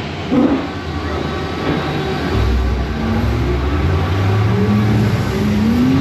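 Dinosaur ride vehicle starting off down the track: a deep rumble sets in about two seconds in, with a rising tone near the end.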